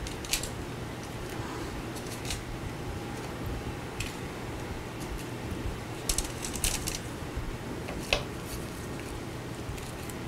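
Light, scattered clicks and crinkles as iced cookies are picked off a foil-lined baking tray and set down on a serving dish, with a small cluster about six seconds in. A steady low hum underneath.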